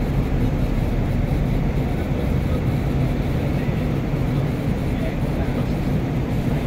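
Airliner cabin noise during descent: a steady low rumble of engines and airflow, even throughout.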